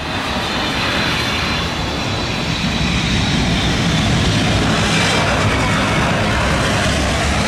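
Boeing 777-300ER jet airliner landing: a steady jet engine and rushing noise as it touches down and rolls along the runway, growing a little louder.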